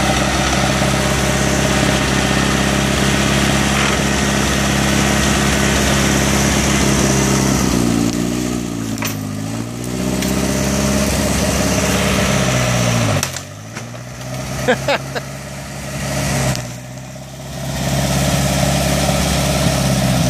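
1962 Allis-Chalmers D10 tractor's four-cylinder engine running steadily, then lugging down and dropping in pitch several times under load as it pulls on a chain hooked to the coop's post. A few sharp cracks come about halfway through.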